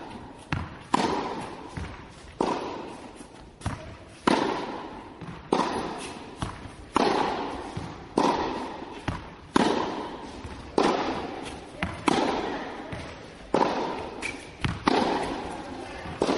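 Tennis balls struck with rackets in a steady rally, a sharp hit about every 1.3 seconds with softer knocks in between, each hit echoing briefly.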